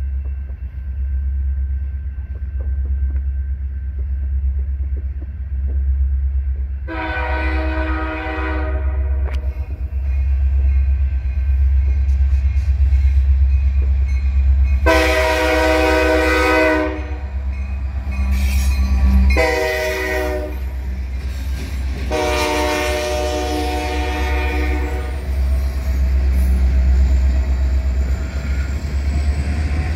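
Diesel freight locomotive horn (CN SD75I and SD60 lash-up) blowing the grade-crossing signal: two long blasts, one short, then one long. A steady low rumble runs under it and grows as the locomotives pass close by near the end.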